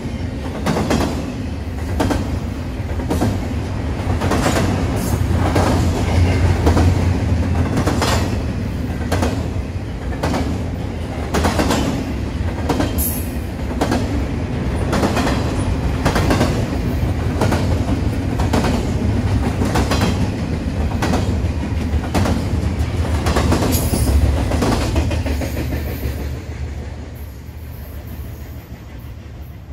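Train rolling past with a low rumble and a steady clickety-clack of wheels over the rail joints, about one click a second. The sound fades away over the last few seconds.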